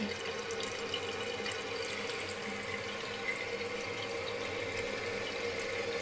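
Steady hiss of running water with a faint steady hum under it.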